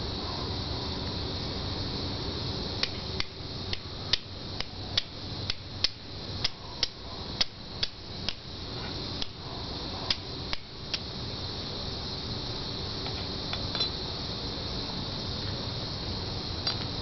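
Flint and steel being struck: about twenty sharp, clicking strikes of a steel striker against flint, two or three a second, to throw sparks onto char cloth, then a few fainter strikes near the end.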